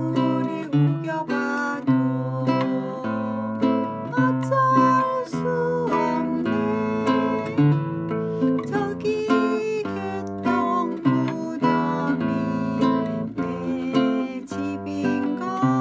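Nylon-string classical guitar played with the fingers: plucked bass notes and chords in a continuous song accompaniment.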